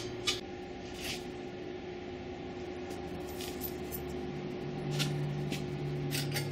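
A few light clicks and knocks as small bolts and an aluminium oil pan are handled on a steel workbench, over a steady background hum.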